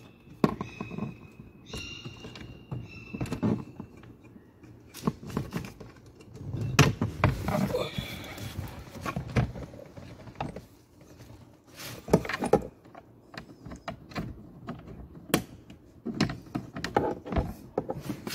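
Irregular plastic clicks, knocks and thunks from a car's glove compartment and dash trim being handled and fitted back by hand, with a few short squeaks of plastic rubbing.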